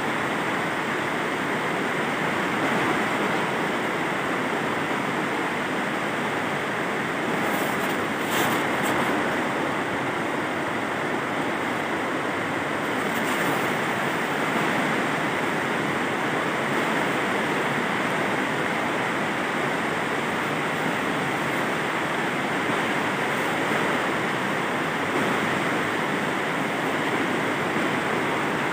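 A steady rushing noise with no pattern or pitch, holding an even level throughout, with a few faint clicks about eight seconds in and again a few seconds later.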